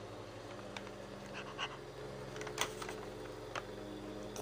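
Quiet room with a steady low hum and a few soft, scattered clicks and taps, about five over four seconds, like small handling noises.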